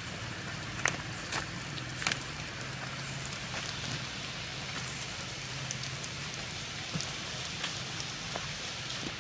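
Steady rain falling on wet ground and stones, a continuous hiss with scattered sharper taps of single drops.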